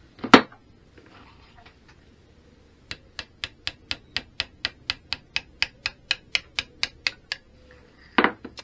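Hammer tapping a drift to drive a worn bush out of a gear held in a bench vise. One hard knock comes about a third of a second in. From about three seconds in there is a steady run of about nineteen light, sharp taps at about four a second, and another hard knock near the end.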